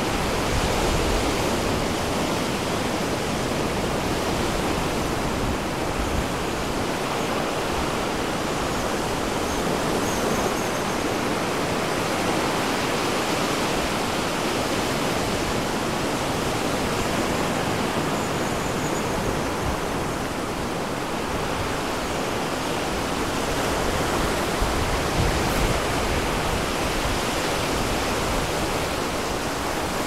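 Ocean surf breaking along the shore, heard as a steady, even rushing noise.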